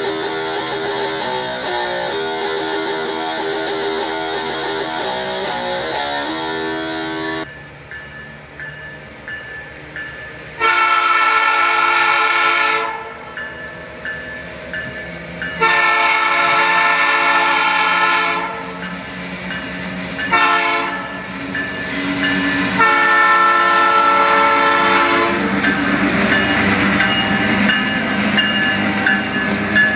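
Guitar playing for the first several seconds, then a diesel locomotive's air horn sounding the level-crossing signal: two long blasts, a short one and a long one. Near the end the locomotive and its freight cars run past close by with steady wheel and engine noise.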